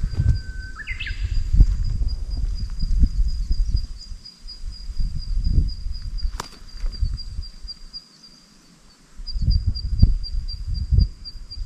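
Wind buffeting the microphone in gusts, a low rumble that drops away for about a second near the end. Under it a steady, high-pitched, rapidly pulsing trill from a small creature keeps going, with a short rising whistle about a second in and a single sharp click midway.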